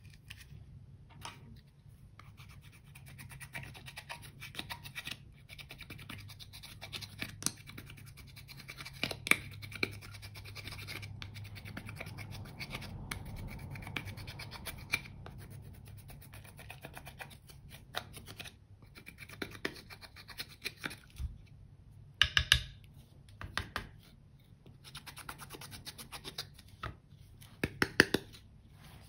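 A tool scratching pressed eyeshadow powder out of the pans of a plastic palette: a dense, rapid, dry scratching, with a few sharp clicks twice in the second half.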